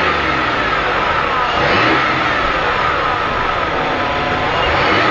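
1994 Ford Taurus 3.8-litre V6 engine revved in blips: the pitch rises to a peak about two seconds in, falls back, and rises again near the end.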